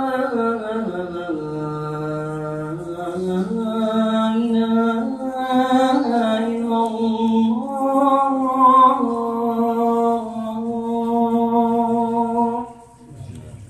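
A man's solo chanted call to prayer (adhan), one voice holding long notes that step and slide between pitches, stopping about 12.5 seconds in.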